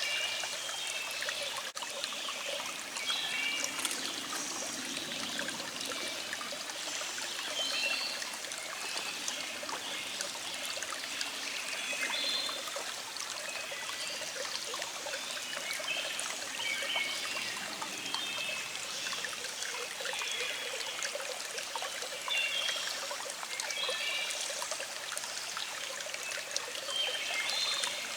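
Small stream flowing with a steady trickle, and birds singing short chirping phrases every few seconds.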